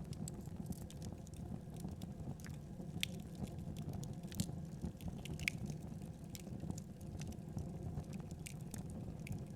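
Wood fire burning in a fireplace: irregular sharp crackles and pops over a steady low rumble, with a few louder pops around the middle.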